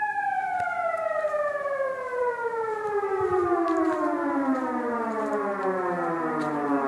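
Village hooter, a motor-driven siren, winding down: its wail falls slowly and steadily in pitch from high to low throughout.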